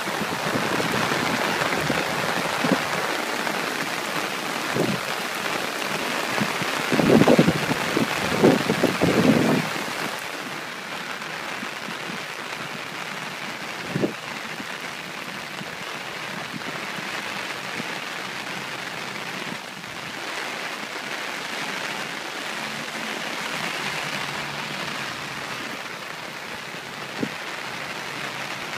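Steady hiss of heavy rain together with swollen, fast-flowing floodwater rushing in a creek. A cluster of louder thumps comes about seven to nine seconds in, with a few single knocks elsewhere, and the hiss drops a little after about ten seconds.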